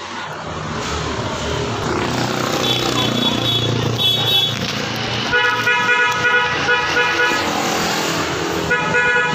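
Vehicle horn sounding in repeated blasts: two short, higher beeps, then longer, lower blasts with short breaks between them, over street traffic noise.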